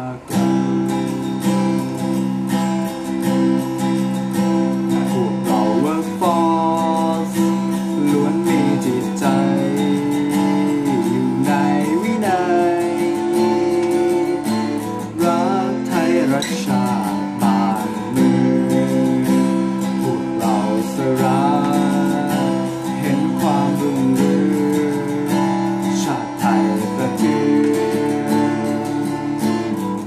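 Cutaway acoustic guitar strummed in a steady rhythm, with a man singing the melody over it.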